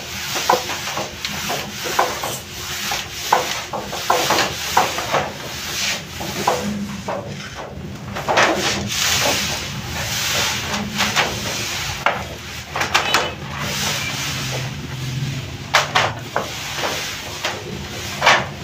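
Gloved hands rubbing, pressing and pulling apart a mass of patisa (soan papdi) dough on a greased slab, making irregular rasping and rubbing strokes. This is the stretching stage, where the cooked sugar mass is worked with flour until it separates into fine strands.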